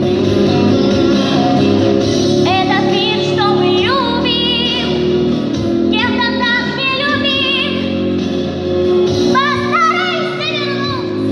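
A young girl singing with vibrato over instrumental accompaniment. Her sung phrases come in about two and a half seconds in and return twice over the steady backing.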